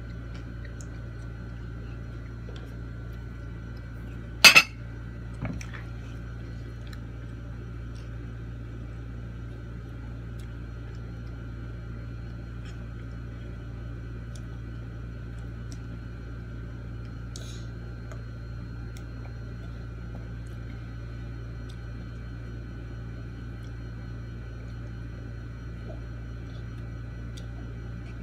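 A sharp clink of tableware about four and a half seconds in, then a lighter one a second later, over a steady hum.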